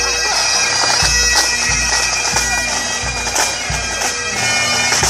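Highland pipe band playing a march: Great Highland bagpipes carrying the tune over their steady drones, with a regular bass drum beat a little under one and a half strokes a second.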